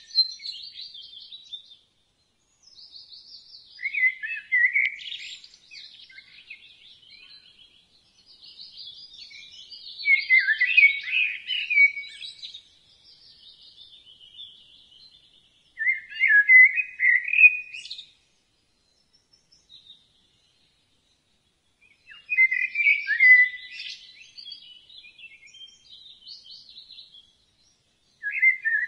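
Birds chirping in short, quick phrases, a burst of song roughly every six seconds with quiet gaps between.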